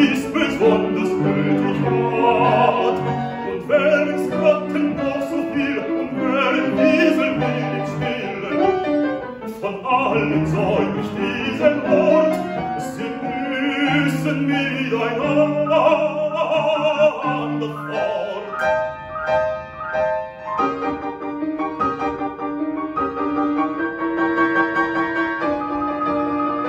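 Baritone singing a German Lied in classical style over a busy grand piano accompaniment. About two-thirds of the way through the voice stops and the piano plays on alone in the closing postlude.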